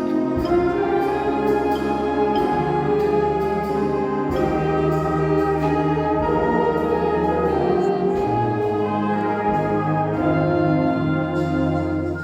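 Symphonic band playing: sustained brass and wind chords over held low bass notes that change every couple of seconds.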